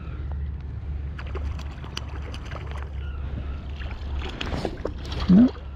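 Wind buffeting the microphone in a low, steady rumble, with a few faint ticks. Near the end comes a short, loud vocal exclamation.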